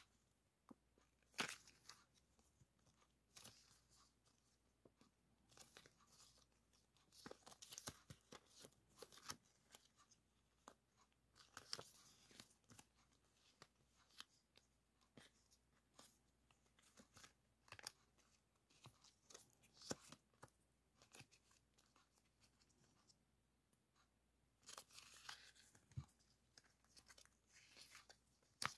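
A stack of clear plastic stickers being handled and leafed through, crinkling and rustling quietly in irregular bursts, with a few sharper crackles.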